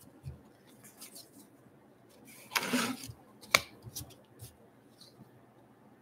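Baseball cards sliding against each other as a pack is flipped through: a short rasp of card stock rubbing about two and a half seconds in, then a sharp snap, with a few faint ticks.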